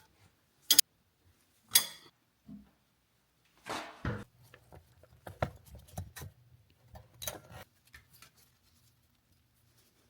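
Metal hand tools and brake parts clinking and knocking while a rear disc brake is taken apart. A handful of sharp single strikes come about a second apart, with quieter tapping and rattling between them.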